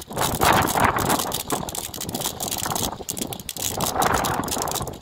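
Strong, gusting wind buffeting the microphone, a loud rushing noise that swells and drops irregularly.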